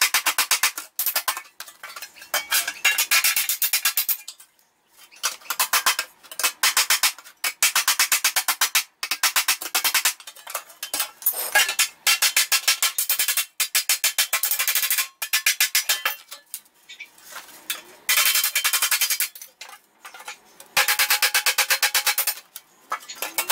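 Hammer rapidly tapping the edge of a new stamped sheet-steel replacement floor pan against a steel rail used as an anvil, in runs of quick metallic strikes with short pauses. The pan's flange is being reshaped so it fits the cab floor where it did not fit before.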